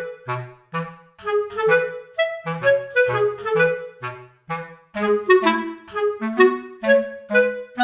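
Light background music: a bouncy tune of short, separate notes, woodwind-like in tone, over a simple bass line.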